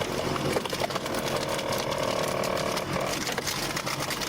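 Tajfun RCA 400 Joy firewood processor running: steady mechanical rattling and clicking, with a whine that starts about a second in and stops near three seconds.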